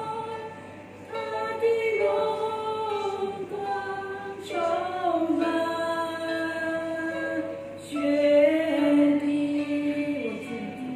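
Women singing a slow hymn in long held notes, with harp accompaniment.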